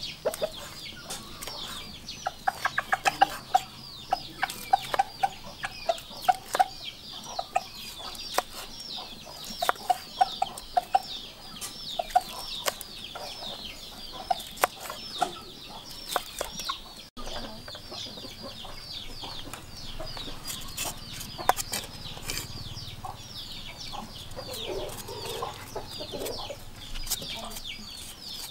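Large kitchen knife chopping meat and bone on a wooden chopping board: a run of sharp, irregular chops. Hens cluck in the first part. A steady high-pitched chirping carries on behind.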